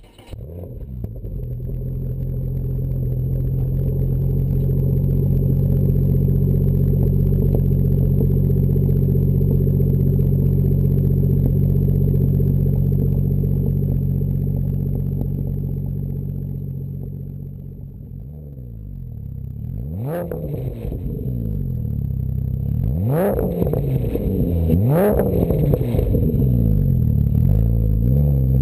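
Porsche Cayman flat-six heard at the tailpipes through a GMG World Challenge Sport cat-back muffler, running at a steady speed. About two-thirds of the way in it is revved, with engine speed sweeping up and down in several quick blips.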